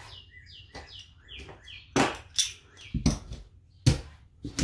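Betting chips clacking on the craps table as they are set down and stacked, several sharp clicks from about two seconds in. Before them, a run of short high chirps that fall in pitch, like a small bird's.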